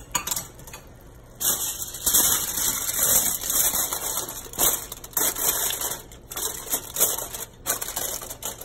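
Aluminium foil crinkling and crackling in irregular spurts as hands spread it over a pot and press it down around the rim, sealing the pot of rice for dum steaming. The crinkling starts about a second and a half in.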